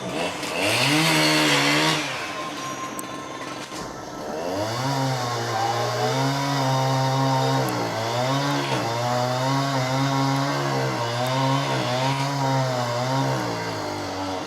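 Two-stroke chainsaw revving up to high speed just after the start, with a loud rush of noise for a second or so. After a short lull it climbs back to high revs about four and a half seconds in and holds there, its pitch dipping briefly several times.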